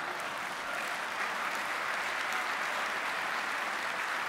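Audience applauding, a steady spread of clapping.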